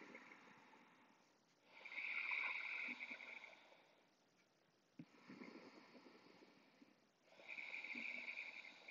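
Faint, slow breathing of a person lying at rest, in soft swells every two to three seconds, louder and quieter breaths alternating.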